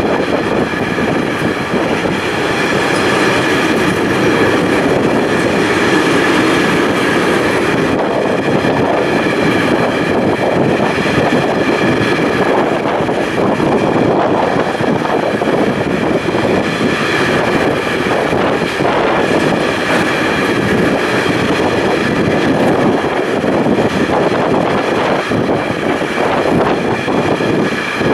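Container freight train's loaded flat wagons passing at speed close by, a steady rumble and clatter of wheels on rails. A steady high-pitched ringing runs over it.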